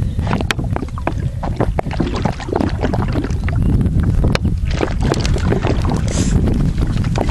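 Wind buffeting the microphone, with irregular splashing and sloshing as water is poured from a jug into a ground squirrel burrow.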